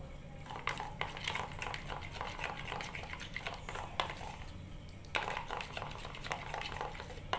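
Metal fork whisking flour and water into a thick batter in a bowl, clicking and scraping quickly against the sides. The strokes pause briefly about four seconds in, then start again.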